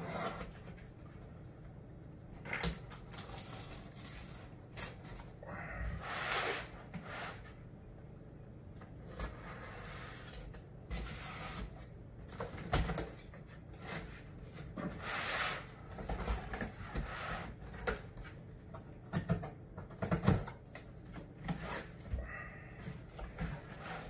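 A knife slits the packing tape on a cardboard box, giving noisy rasps of about a second each, and scattered clicks and knocks follow as the cardboard flaps are worked open. Cats are fighting at times in the background.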